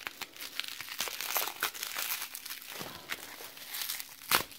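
Bubble wrap crinkling and crackling in irregular handfuls as it is pulled off a packaged item, with one sharp, louder snap a little before the end.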